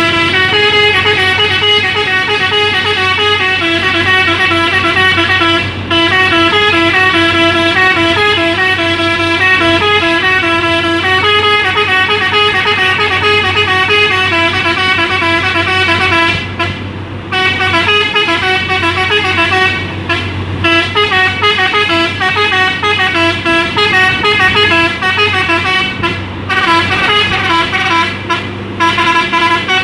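Telolet multi-tone horn on a Hino dump truck, playing its stepping up-and-down melody almost without pause, with a few short breaks, over the steady hum of the truck's engine.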